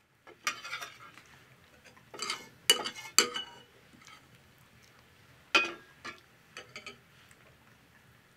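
Metal spoons clinking and scraping against ceramic soup bowls as several people eat, a scatter of short clinks with the loudest about three seconds in and again near five and a half seconds, one ringing briefly.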